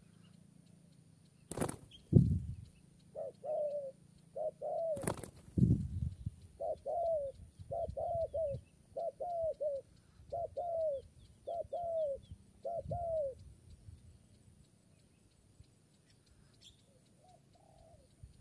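Spotted dove cooing: about eight phrases of two or three short coos, each falling in pitch, from about three seconds in to about thirteen seconds in. Two loud thumps come early, about one and a half and five seconds in.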